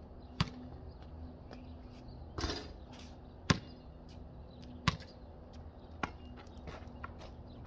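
A basketball bouncing on a concrete court: four sharp, irregularly spaced bounces, with a short, noisier clatter about two and a half seconds in.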